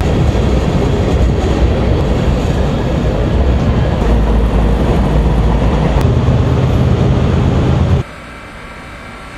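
Freight train rolling past on a bridge: a loud, steady rumble of wheels and cars on the rails. It cuts off suddenly about eight seconds in, leaving a much quieter steady background.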